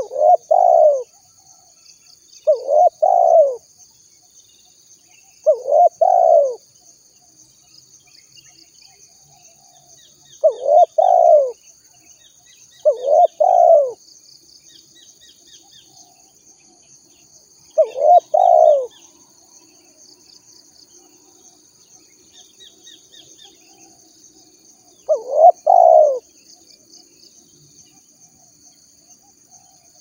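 Spotted dove cooing: seven loud calls of about a second each, some broken into two quick parts, at irregular gaps of two to seven seconds. A steady high insect drone runs underneath, with faint short chirps of small birds between the calls.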